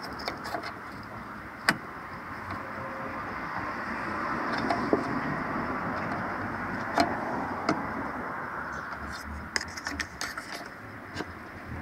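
A ruler prying and tapping in the gap of a car's latched fuel filler door: a few scattered sharp clicks, with a quick cluster of them near the end, over a steady background noise.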